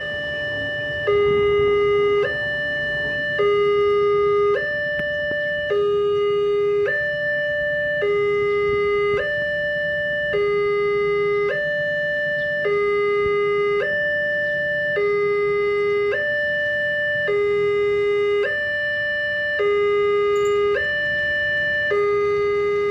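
Railway level-crossing warning siren: an electronic two-tone alarm alternating steadily between a higher and a lower tone, each held a little over a second. It warns road traffic of an approaching train.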